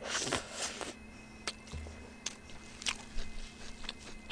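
Close-miked eating of a burger. There is a bite in the first second, then sharp wet mouth clicks and smacks at irregular intervals as she chews.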